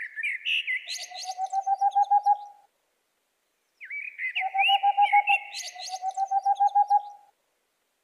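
Boreal owl (Tengmalm's owl) singing: rapid runs of low hoots, about eight a second. There are three runs, each one to two seconds long, with a pause of about a second and a half after the first. Higher chirping, gliding calls sound over and between the runs.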